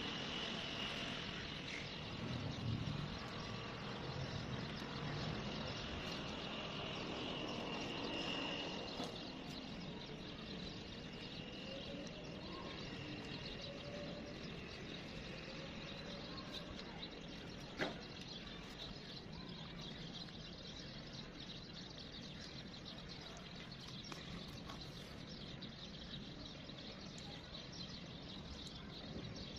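Steady outdoor background noise with a thin high chirping tone over the first third, and one sharp click a little past halfway.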